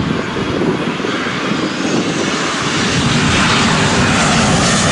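A Boeing 787 jet airliner on final approach with its landing gear down passes low overhead. Its engines make a steady rushing hum that grows louder and sharper as it nears, swelling about three seconds in.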